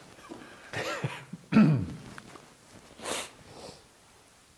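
A man's short bursts of laughter mixed with coughing. The second burst falls in pitch, and a breathy cough-like burst comes about three seconds in.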